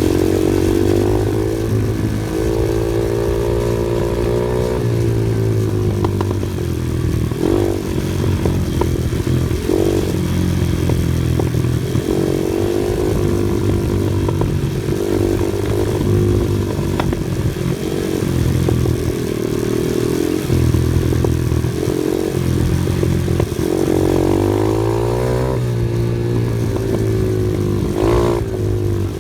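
Off-road vehicle engine running loudly under changing throttle, its pitch rising and falling several times as it climbs and drops in revs.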